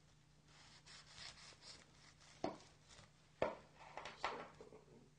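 Kitchen knife slicing through a nori-wrapped sushi roll on a wooden board. Soft scraping strokes as the blade works through the seaweed, then two sharp knocks about a second apart near the middle as the blade meets the board.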